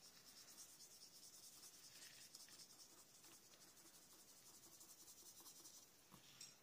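Faint, fast scratching of a water-brush pen's bristles scrubbed over watercolour-pencil marks on paper, stopping near the end.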